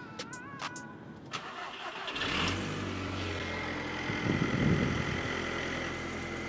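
Audi TT Mk1's 1.8-litre turbocharged four-cylinder engine starting on its first start after an oil pickup pipe change and fresh oil: a few clicks, then it catches about two seconds in and settles into a steady idle. It runs a little loud at first, which the owner thinks is just oil still working its way up to the top of the cylinder head.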